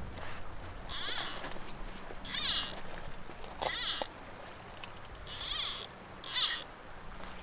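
Fly line being pulled off a fly reel in five quick strips, each pull a short zipping buzz that rises and falls in pitch.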